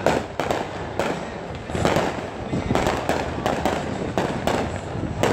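Aerial firework shells exploding in an irregular, rapid string of sharp bangs, about two or three a second.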